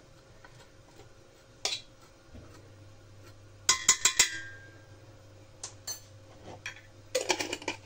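Metal spoon clinking and scraping against a stainless steel cooking pot while chicken is stirred in it, with the loudest cluster of quick clinks about four seconds in and more clatter near the end.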